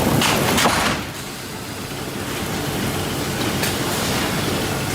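Sawmill machinery running: a loud rush of noise for about the first second, then a steady industrial roar from the processing line.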